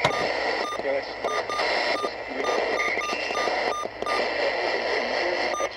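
Radio audio heavy with static: a steady hiss with faint, garbled speech underneath and short beeps of interference repeating every fraction of a second.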